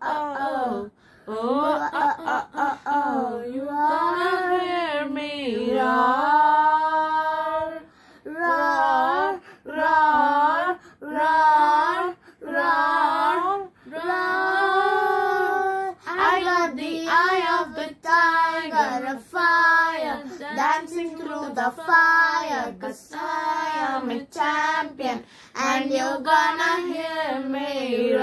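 Girls and a woman singing a slow song together in unison, holding long notes that bend in pitch, with short breaks for breath.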